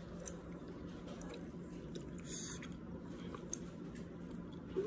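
Someone chewing food close to the microphone, with small wet mouth clicks. About halfway through there is a brief scrape or rustle.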